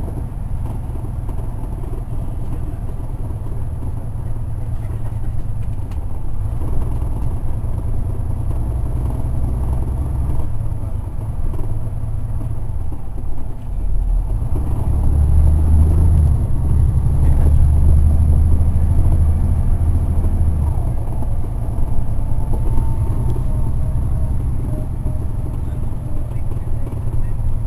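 Caterpillar C9 diesel engine of a 2004 Neoplan AN459 articulated transit bus, heard from on board with the bus under way: a steady low drone that swells louder for several seconds past the middle, then settles back.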